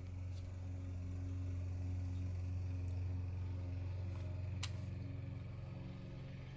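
Steady low hum with a few pitched lines, swelling slightly in the middle, and one sharp click about four and a half seconds in.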